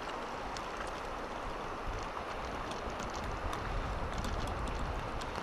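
Steady rush of a shallow, fast-flowing river, with scattered small splashes and clicks, more of them in the second half.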